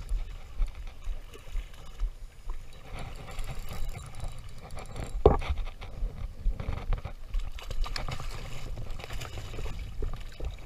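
Shallow sea water sloshing and splashing over rocks around wading feet, with irregular wind rumble on the microphone. A single sharp knock about five seconds in.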